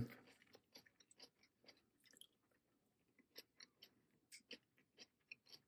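Faint chewing of a mouthful of crunchy coleslaw, a scatter of soft, irregular crunches and mouth clicks.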